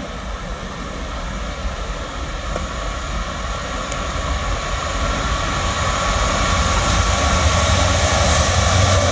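EMD Class 66 diesel locomotive approaching under power, its engine running steadily and growing louder as it comes closer, with a steady whine above the deep engine note.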